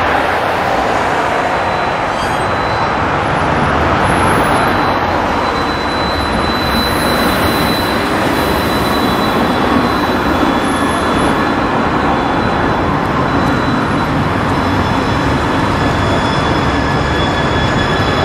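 Steady noise of street traffic: trams and cars rolling past close by, with a faint high steady whine over it.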